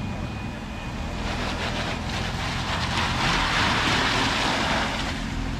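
An off-road SUV's engine runs steadily while a rushing, splashing noise swells up over a couple of seconds and dies back: the tyres are churning through sloppy mud.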